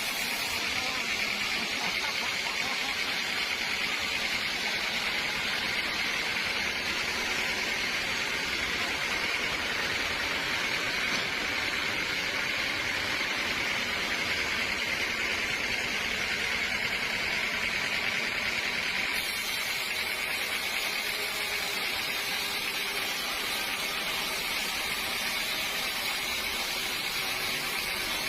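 Sawmill machinery running steadily: a continuous, even whirring noise with no breaks or impacts.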